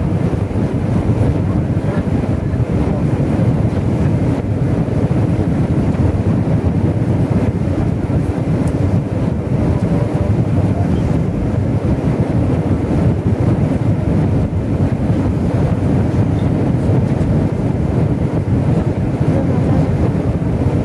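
Steady cabin noise inside an Airbus A320-family airliner during its descent: jet engines and airflow past the fuselage, heard as a loud, even, low rumble.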